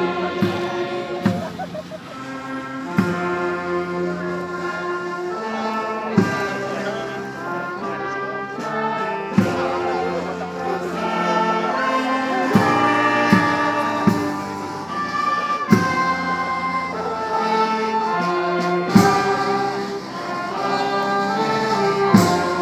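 Brass band music: a slow tune in long held notes, with a drum stroke every few seconds.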